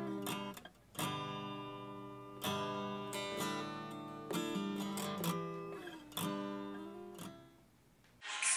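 Acoustic guitar strummed, a chord struck about once a second and left to ring and die away. The strumming fades out near the end.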